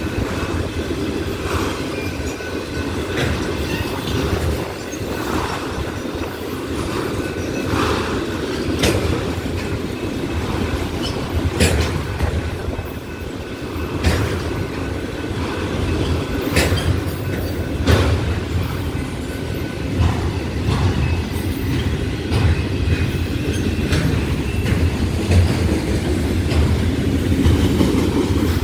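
Empty autorack freight cars rolling past: a steady low rumble of wheels on rail, broken by irregular sharp clanks and clicks every second or two.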